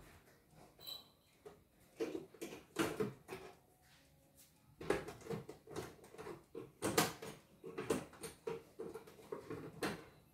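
Irregular clicks, knocks and rustles of a portable embroidery machine's plastic body and parts being handled and shifted by hand.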